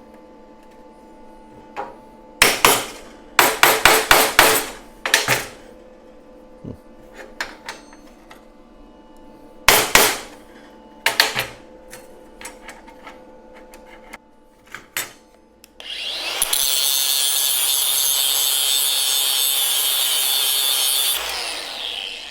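Hammer blows on steel plate: a few single strikes and a quick run of them, tapping the bolster plates and ribs into place. Near the end comes a steady loud hiss of about five seconds that starts and stops abruptly.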